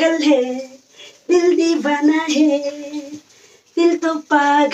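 A woman's voice singing in a sing-song way, with long held notes, in three short phrases broken by brief pauses.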